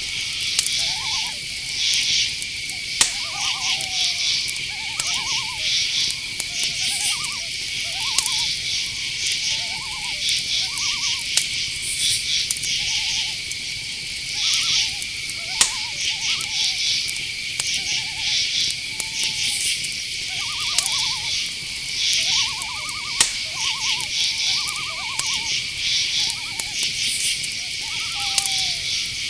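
Night-forest chorus: crickets trilling steadily, with pulsing higher insect buzzes, and frequent short calls of night birds, some bending in pitch and some rapidly pulsed. Three sharp clicks break in, at about 3, 15 and 23 seconds.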